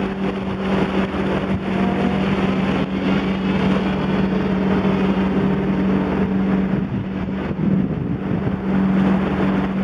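Pontoon boat's outboard motor running at a steady, unchanging pitch under way, with wind on the microphone.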